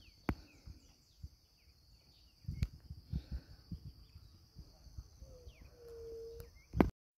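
Faint riverbank ambience: scattered bird chirps over a steady high insect hiss, with a few soft low knocks. Near the end, one low whistled note is held for about a second.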